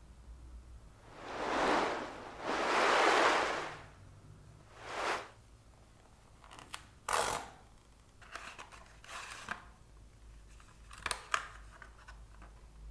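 Paper and cardboard packaging of a camera lens protector being handled and opened: two long sliding swishes early on, then a sharp rasp with a click about seven seconds in, followed by lighter rustling and scraping and a couple of small clicks near the end.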